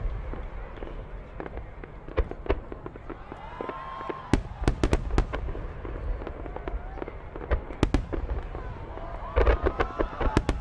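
Fireworks going off: scattered sharp bangs and crackles at irregular intervals, with a dense flurry of cracks near the end.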